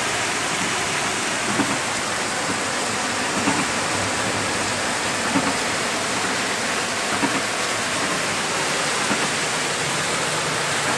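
Muddy floodwater rushing down a street in a heavy downpour: a steady, unbroken rush of water and rain.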